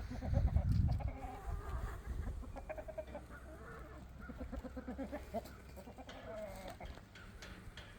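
Hens clucking, many short repeated calls overlapping, with a low rumble in the first second.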